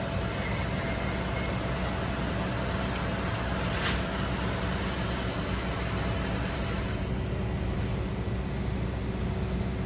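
Fire brigade aerial platform truck's engine running steadily with a deep rumble, keeping its raised boom powered, with one short click about four seconds in.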